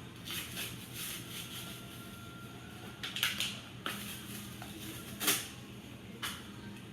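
Pokémon card packs and cards being handled: a series of short crinkling rustles, the loudest about three seconds in and again just past five seconds.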